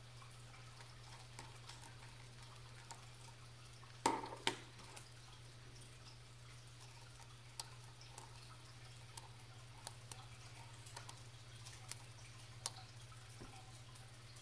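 Small metal watch tools, a screwdriver and tweezers, clicking and tapping against the opened module of a Timex digital watch during a coin-cell battery change. Two sharper clicks come about four seconds in, followed by scattered light ticks, over a steady low hum.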